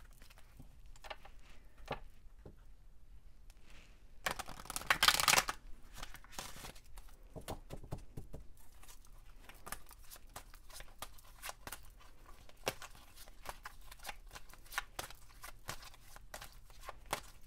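Oracle cards being shuffled by hand, a run of quick soft card slides and taps, with a louder, dense flurry lasting about a second just after four seconds in.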